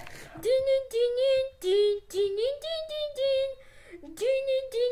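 A child singing in a high voice, a string of short held notes with brief breaks between them.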